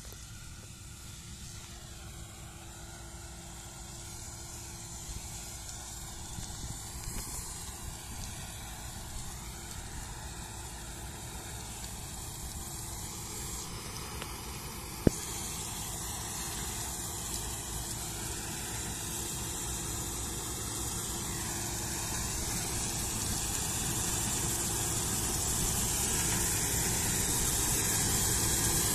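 Claas Lexion combine harvester running under load while cutting crop, getting steadily louder as it approaches. A single sharp click sounds about halfway through.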